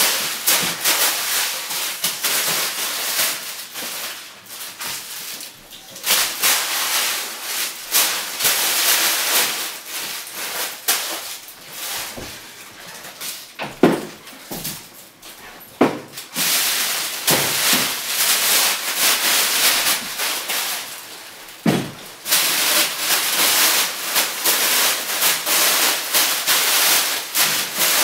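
Crinkly white wrapping material rustling and crackling as it is handled, in bouts of several seconds with short lulls between them, with a few dull knocks in the middle stretch.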